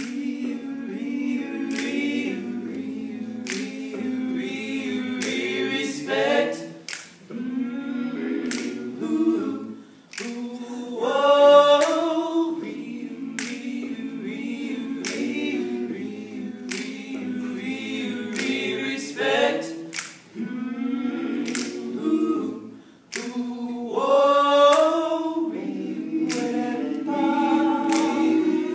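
All-male a cappella group singing: a sustained low backing of voices under a solo male lead whose phrases sweep upward several times, the loudest about a third of the way in. Sharp finger snaps keep time throughout.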